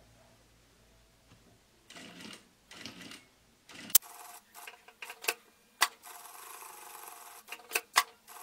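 Sewing machine stitching a seam: faint, scattered sounds at first, then a sharp click about four seconds in and a steady run with a few more sharp clicks.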